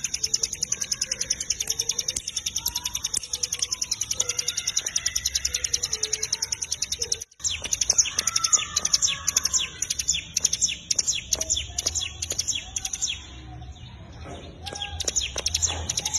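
Ciblek gunung (cigun) singing loud and fast: a high, rapid, even-paced chattering trill of short repeated notes, with softer lower whistles from other birds underneath. The song breaks off abruptly about seven seconds in and starts straight up again.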